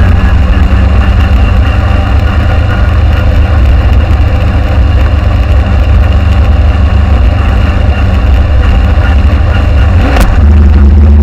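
Motorcycle exhaust running steadily, so loud that it overloads the action-camera microphone and comes out harsh and distorted. About ten seconds in there is a sharp click and the low rumble turns louder and steadier.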